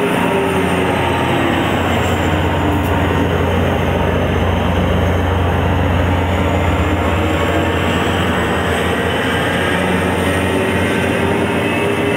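EMD GP40 diesel locomotive's turbocharged engine working as the train pulls away, a loud whine over a steady low rumble; the whine dips in pitch and rises again. The uploader blames a turbocharger fan problem for the bad sound, which is likened to a broken vacuum cleaner.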